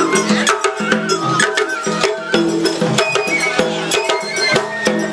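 Japanese festival float music (matsuri bayashi): drums and other percussion struck in a fast, busy rhythm under a high-pitched melody line.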